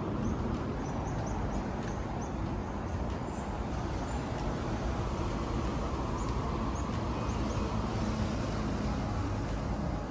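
Steady low outdoor rumble, like wind or distant traffic, with faint, short high chirps scattered through it.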